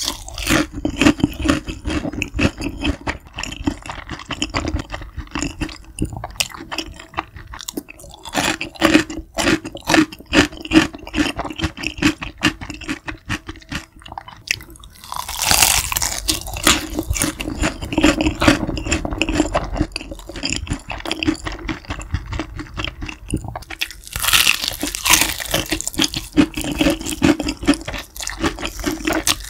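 Close-miked chewing of crispy fried chicken: a steady run of crackly crunches and mouth sounds. It gets louder and fuller a little past halfway and again about three quarters of the way through.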